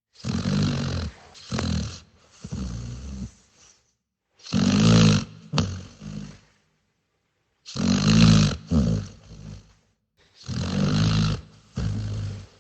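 A sleeping dog snoring: four bouts of low, buzzing snores about three seconds apart. Each bout is two or three snores in a row, with silence between the bouts.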